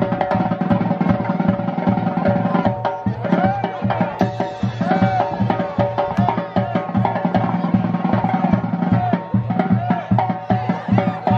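Upbeat dance music: a fast, steady drum beat under a held, wavering melody line.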